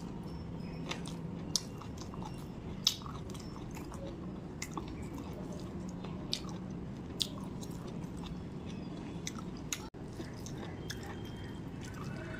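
Close-miked eating sounds: a person chewing mouthfuls of rice and chicken curry eaten by hand, with wet mouth noises and scattered sharp clicks and smacks.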